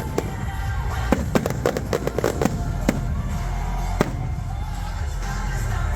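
Aerial fireworks going off: a quick run of sharp bangs and crackles in the first half, then two single bangs. Music plays underneath.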